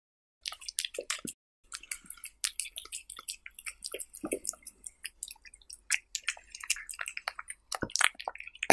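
Cat chewing and tearing at raw meat slices wrapped around a wooden stick: quick, wet, clicky bites and smacks, with a brief pause a little over a second in and one sharp loud snap at the end.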